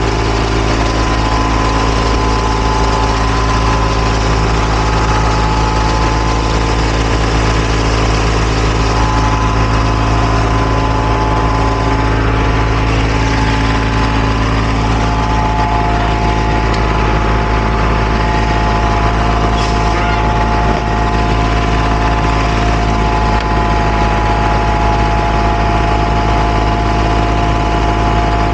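Diesel engine of asphalt paving machinery running loud and steady, a low drone with several steady whining tones over it; another whine joins about halfway through.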